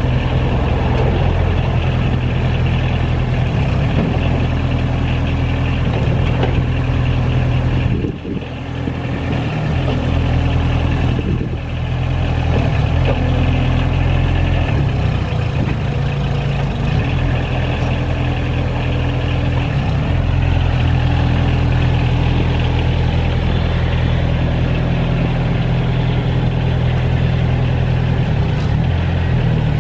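Lombardini diesel engine of a Palfinger Crayler truck-mounted forklift running steadily, dipping briefly in level twice, about eight and eleven seconds in.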